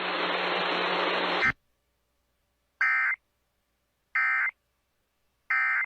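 A burst of radio hiss with a low hum that cuts off about a second and a half in. Then three short, identical warbling data bursts come about 1.3 seconds apart: the Emergency Alert System end-of-message tones, which mark the end of the alert.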